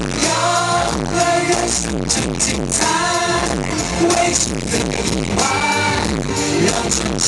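Live pop song: male voices singing a melody over a loud amplified backing track, with very heavy bass. It is heard through a small camera microphone in the audience, which struggles with the bass.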